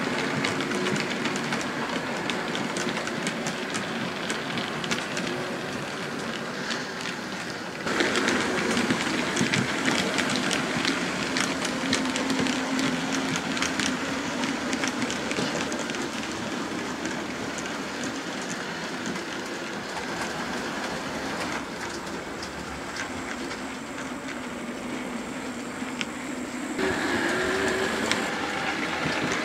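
OO gauge model trains running on track: a steady mechanical whirr with a rapid rattle and click of wheels over rail joints. The sound gets abruptly louder about a quarter of the way in and again near the end.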